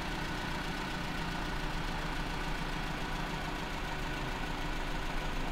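Maruti Zen's carburettor engine idling steadily at about 900 RPM, its idle speed just set after tuning the idle mixture screw.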